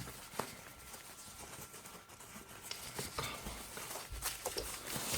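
Packaging being unwrapped by hand from a suppressor replica: soft rustling with a few light clicks and taps.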